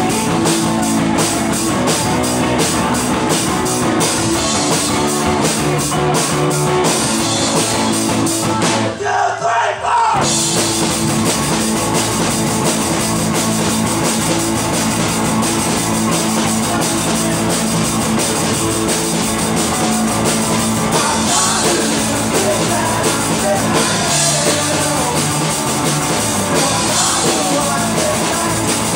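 Live rock band playing loud: drum kit driving a fast beat under electric guitar and bass. About nine seconds in, the drums and low end drop out for about a second before the full band crashes back in.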